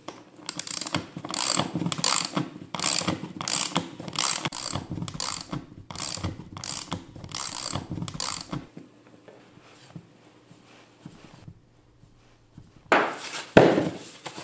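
Socket ratchet clicking in quick runs as it drives an M6 bolt into a plastic dust shoe, cutting threads in the hole with the bolt itself. The clicking stops after about eight seconds, and a louder burst of handling noise follows near the end.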